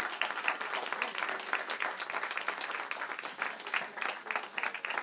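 Congregation applauding, dense clapping from many hands.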